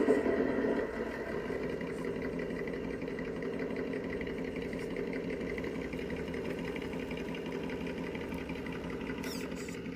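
Electric motor and geared drivetrain of a radio-controlled scale rock crawler whining steadily as it creeps along at low throttle, a little louder in the first half second.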